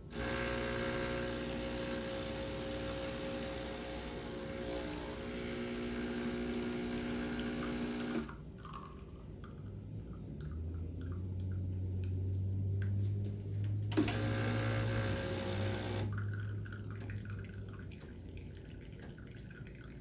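Breville BES820XL espresso machine's 15-bar pump buzzing while an espresso shot is pulled. The buzz is loud for about eight seconds, then drops to a quieter, lower hum, with a click and a short return of the louder buzz about fourteen seconds in.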